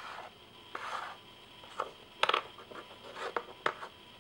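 Small toy pieces being handled and set down on cardboard and plastic: scattered light taps, clicks and rubbing, with a quick cluster of clicks a little over two seconds in.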